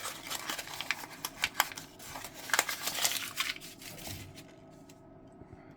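Packaging being unwrapped by hand: crinkling, rustling and tearing with sharp crackles, which stop about four seconds in.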